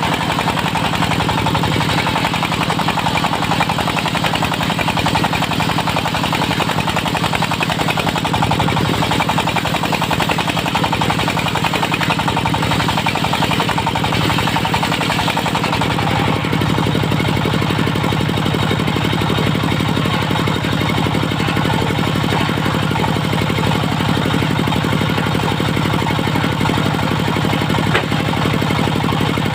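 Diesel-powered portable circular sawmill running steadily with a rapid knocking engine beat under the saw. About halfway through, the higher noise fades and the engine's low hum grows stronger.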